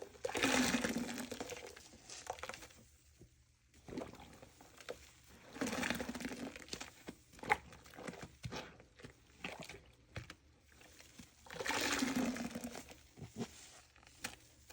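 A soaked, soapy sponge squeezed three times, about six seconds apart, water gushing out with each squeeze, with small crackles between.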